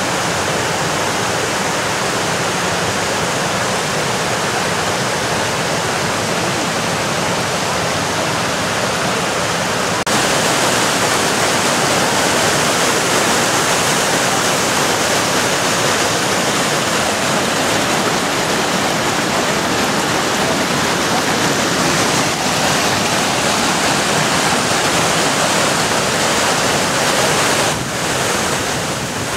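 Whitewater of the Roaring River cascading over boulders at the Alluvial Fan waterfall: a loud, steady rushing of falling water, a little louder and brighter from about ten seconds in.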